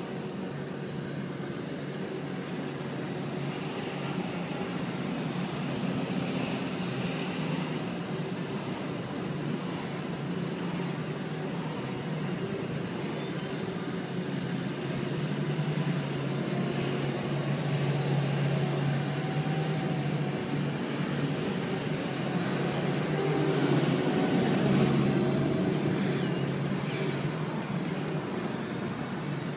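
Steady engine and road rumble heard from inside a moving road vehicle, growing louder a couple of times along the way.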